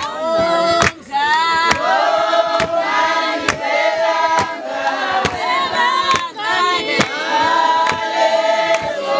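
A group of voices, women's leading, singing together in chorus, with a sharp clap on the beat a little more than once a second.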